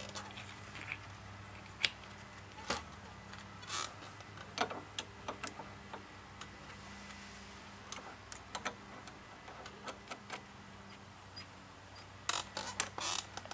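Light metallic clicks and clinks, scattered and irregular, as steel spacer washers and pulley parts are handled on a VW Beetle's generator pulley; a quicker run of clinks near the end.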